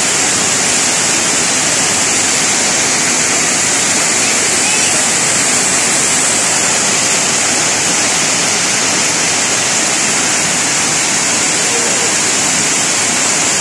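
Heavy tropical downpour: rain pouring down steadily as a loud, even hiss.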